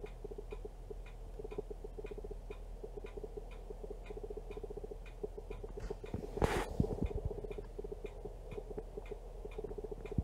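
A camera's autofocus motor hunting, a string of ticks about three a second over a buzzing whir, with one brief louder rustle about six and a half seconds in: the camera keeps trying to re-focus.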